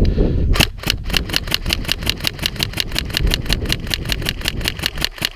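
Airsoft electric gun firing a long full-auto burst, a steady rapid clatter of about eight or nine shots a second that starts about half a second in and stops just before the end. Wind rumbles on the microphone underneath.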